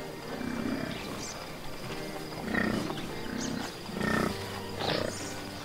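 American bison grunting: a series of short, low grunts about half a second to a second apart.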